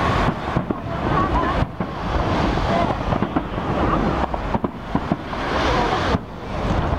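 Aerial firework shells bursting one after another, a dense run of booms and crackle, heard through a heavy low rumble of wind on the microphone.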